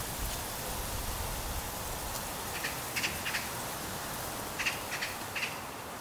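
Outdoor ambience: a steady hiss, with a low rumble in the first second and a few short, high-pitched ticks around the middle and near the end.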